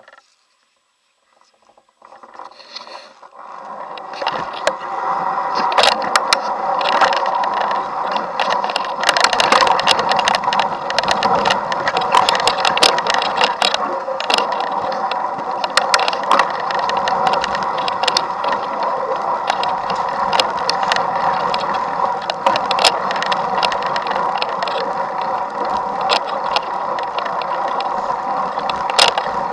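Fat bike ridden over a packed-snow trail, heard from a camera on the bike. It is nearly silent at first; about two seconds in the riding noise starts and builds up. After that it is a steady hum with frequent sharp rattles and clicks from the bike and the camera mount jolting over the snow.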